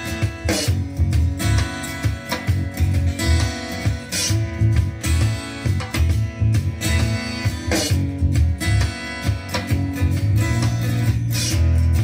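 Music with a plucked and strummed acoustic guitar.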